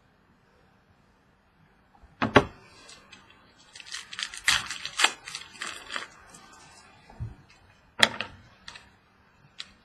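Trading cards and their packaging being handled on a table: a sharp knock about two seconds in, a couple of seconds of crinkling and clicking, then another sharp knock near the end.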